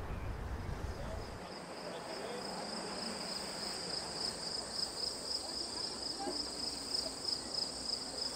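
Crickets chirping in a steady, fast pulsing trill, with faint distant voices beneath. A low sea rumble fades out about a second in.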